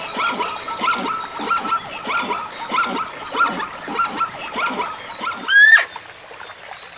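An animal calling in a rapid series of short, repeated calls, about three a second, with a steady high whine underneath. About five and a half seconds in, the series gives way to one loud, rising call.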